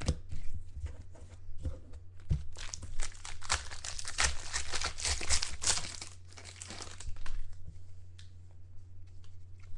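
Foil trading-card pack being torn open and its wrapper crinkled, a dense papery crackle that is loudest from about two and a half to six seconds in. A steady low electrical hum runs underneath.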